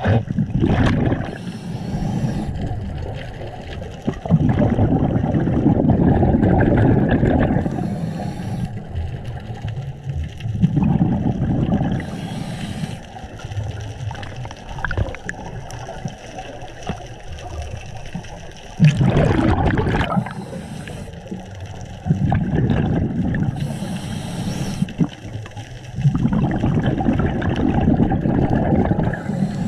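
Scuba diver breathing through a regulator underwater. Each breath is a short hiss of inhalation followed by a few seconds of rumbling exhaled bubbles, repeating about every five or six seconds.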